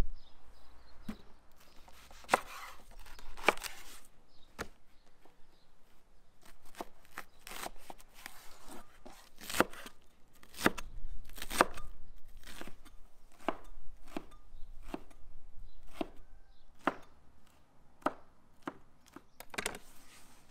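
Meat cleaver chopping a leek on a wooden cutting board: a string of sharp knocks as the blade cuts through the stalk and strikes the board, at an uneven pace of about one a second, with some quicker runs.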